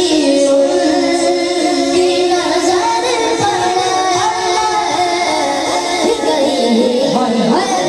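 A boy's solo voice singing a naat through a microphone and PA, drawing out long held notes that slide and waver in pitch.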